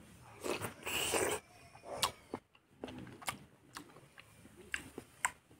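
Close-miked eating sounds from a person chewing fatty pork and rice: a loud wet burst about half a second in lasting roughly a second, then a series of sharp, wet mouth clicks and smacks.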